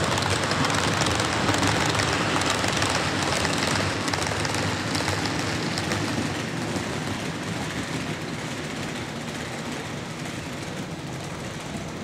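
00 scale model train running along the track, a steady rolling noise of wheels and motor that fades gradually as the train moves away.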